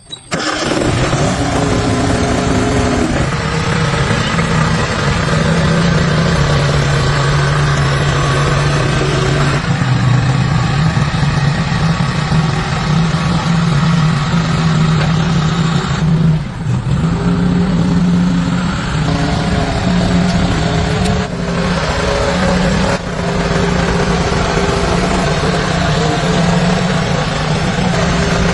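Car engine running, its pitch stepping up and down every few seconds.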